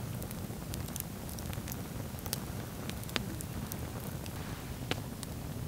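Driftwood campfire crackling, with irregular sharp pops and snaps, two of them louder: one about three seconds in and one near five seconds. A steady low rumble runs beneath.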